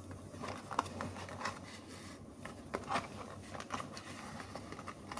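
Fingers picking and prying at the tuck flap of a small cardboard box, giving faint, scattered scrapes and clicks of card.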